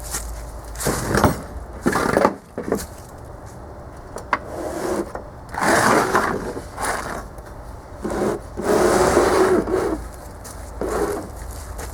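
Irregular scraping and knocking as a gas-powered air compressor, its tank half cut off, is dragged and turned around on the ground, in several separate bursts a second or so long.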